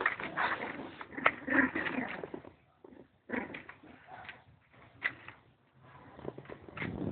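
Pet dogs making low vocal sounds in three bursts, mixed with a few sharp knocks; the first burst is the loudest.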